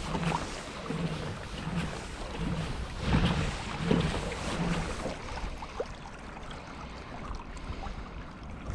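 Water lapping against a fishing kayak's hull, with wind on the microphone. A soft low pulse repeats about every three quarters of a second for the first five seconds, and there are louder swishes of water around three and four seconds in.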